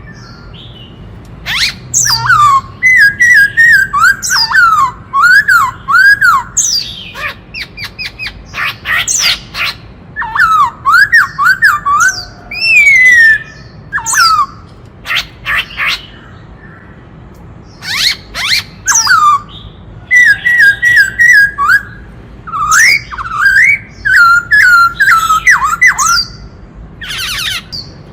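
Black-throated laughingthrush singing: loud phrases of quick whistled notes sliding up and down, mixed with harsh rasping squawks and broken by short pauses.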